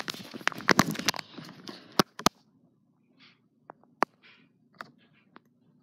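Phone handling noise: rustling and sharp clicks as the phone is moved about, denser and louder for the first two seconds, then soft scattered rustles and single clicks as he settles onto the bed.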